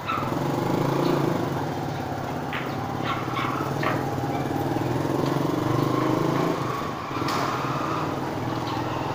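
A small engine running steadily, with a few sharp clicks about three to four seconds in.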